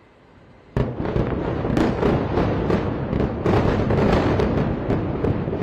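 Explosions at an airstrike site: a sudden blast about a second in, then a dense, continuous crackle of rapid pops and bangs as secondary explosions go off in the fire.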